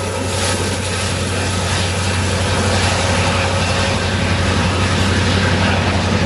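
Diesel locomotives of a BNSF coal train running past: a steady, loud low engine drone over a wide rushing noise.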